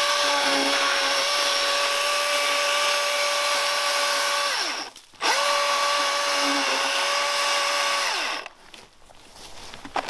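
Milwaukee M18 cordless electric chainsaw running under load as it rips lengthwise through a log, a steady motor whine mixed with the chain cutting wood. It stops and the pitch falls about four and a half seconds in, starts again half a second later, and runs about three seconds more before spinning down once more.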